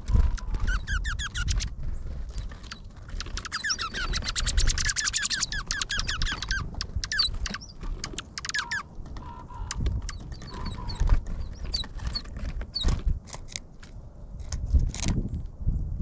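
Small songbirds feeding on a wooden platform feeder: scattered clicks and knocks of beaks pecking seed and birds landing on the tray. A few seconds in comes a rapid chattering run of high chirps lasting about three seconds, with shorter bouts of chirps later.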